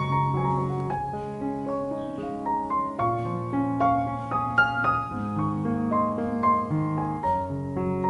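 Solo piano background music: a melody of single struck notes over low held chords.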